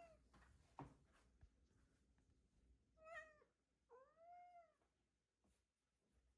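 A domestic cat meowing twice: a short meow about three seconds in, then right after it a longer meow that rises and falls in pitch.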